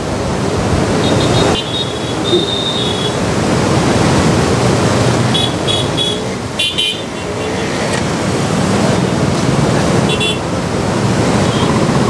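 Road traffic running steadily, with short vehicle horn toots several times: a few beeps about a second in, more around the middle, and one more near the end.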